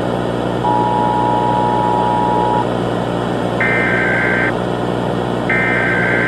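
Emergency Alert System signal: a steady two-note attention tone lasting about two seconds, then two harsh digital data-burst squawks about two seconds apart. Under it all runs a constant static-like hiss with a low drone.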